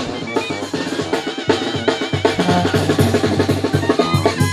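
Live Mexican brass band playing: sousaphone, trumpets, trombone and clarinet over a steady beat on snare and bass drum.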